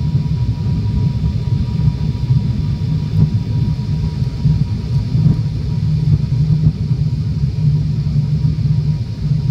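Loud, steady low drone of an airliner's engines and airflow, heard from inside the passenger cabin during the final approach to landing, with a faint thin whine in the first half.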